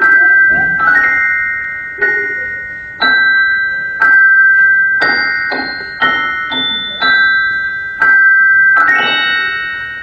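Music: a slow chiming melody of single bell-like notes, like a glockenspiel or music box, one struck about every second and each left to ring and fade.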